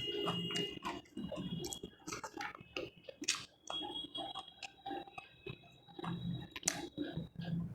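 Close-up chewing and mouth sounds of a person eating a meal of fried rice, vegetables and chicken, with irregular wet smacks and small clicks and clinks. A faint high steady tone hums underneath.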